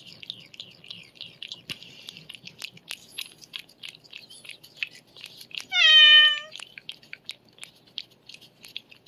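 A cat licking lickable treat paste from a squeeze tube, a steady run of small wet smacking and lapping clicks. About six seconds in a cat meows once, briefly and loudly, the call dipping slightly in pitch then holding.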